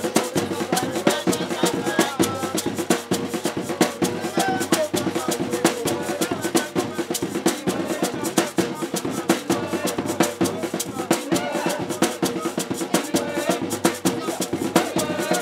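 Hand-drum and percussion music with a fast, steady beat for dancing, with voices over it.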